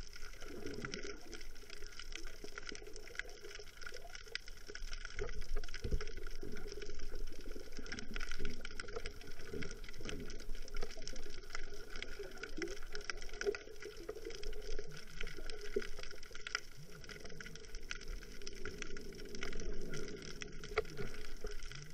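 Muffled, uneven water noise recorded underwater through a camera's waterproof housing, over a steady high hiss.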